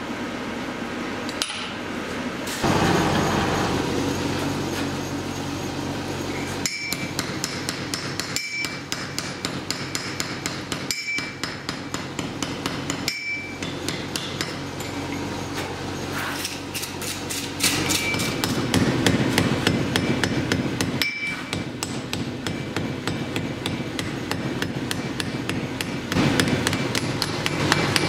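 Blacksmith's hammer striking hot iron on an anvil in a fast, even run of blows, each with a short metallic ring. A steady rushing noise runs underneath, and a few abrupt breaks interrupt the hammering.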